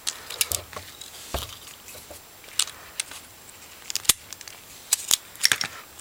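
Irregular small sharp clicks and taps, about ten of them, from fingers handling the plastic housing and parts of a partly disassembled HTC Hermes (AT&T 8525) phone.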